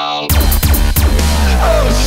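Background electronic music. A build-up cuts off about a quarter second in, and a heavy bass line with a dense beat drops in.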